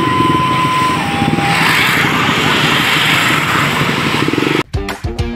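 Busy street-market noise with motorcycle engines running close by, and a two-note beep, a high tone then a lower one, in the first second and a half. Plucked-guitar music cuts in abruptly near the end.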